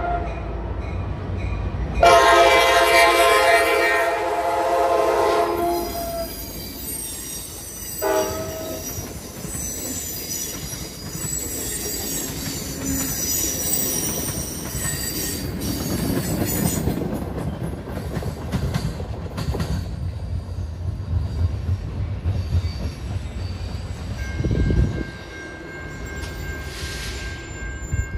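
Amtrak Piedmont passenger train's horn sounds a long blast about two seconds in and a short one near eight seconds. The train then passes with its wheels running on the rails and a high-pitched wheel squeal.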